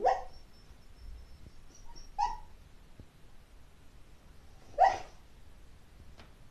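Sleeping mixed-breed dog sleep-talking while it dreams: three short, sudden cries about two seconds apart, the third the loudest. A faint, thin high tone runs between the first two.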